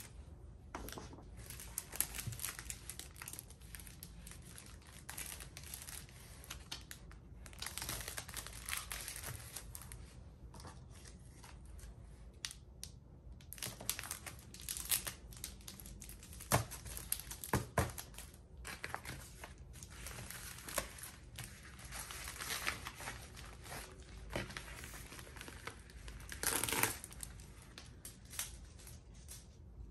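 Hands handling paper cards and plastic packaging: irregular rustling and crinkling, with a few sharp taps about halfway through and a louder crinkle near the end.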